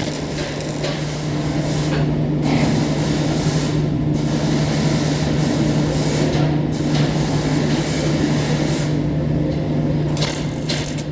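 Electric arc welding on galvanized iron: a steady crackle and sputter over the constant hum of the welding machine, the crackle thinning briefly several times.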